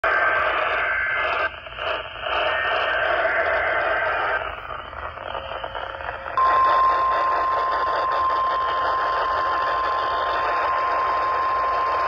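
A Motorola handheld radio's speaker receiving a weather-radio weekly test alert. It gives a hissing, noisy transmission with short dropouts, then about six seconds in a single steady alert tone comes on and holds.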